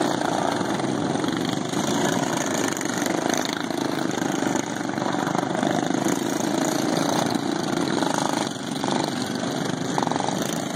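Several racing lawn mowers' factory-stock single-cylinder engines, governed to 3650 rpm, running together on the track in a steady mixed engine noise.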